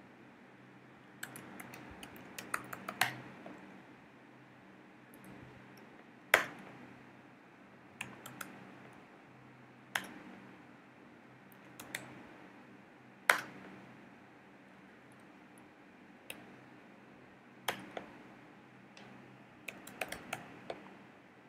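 Typing on a computer keyboard: scattered keystrokes, a quick run of them about a second in and again near the end, with single sharper key presses every couple of seconds between, over a faint low steady hum.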